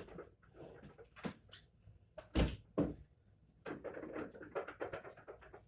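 Scattered knocks and clatter of things being handled, with two louder thumps about two and a half seconds in and a run of lighter rattling after them.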